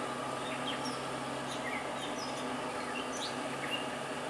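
Birds chirping outdoors, many short, quick calls scattered throughout, over a steady low hum.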